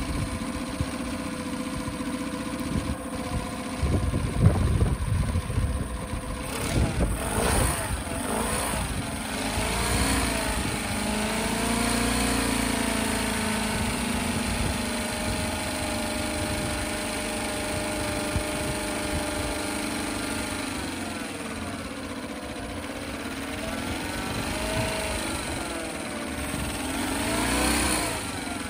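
2006 Honda 8 hp four-stroke outboard running with its cowling off, clamped in a flush tub, being flushed with salt-removal solution. Its revs rise and fall a few times as the tiller throttle is worked, with a louder, rougher stretch a few seconds in.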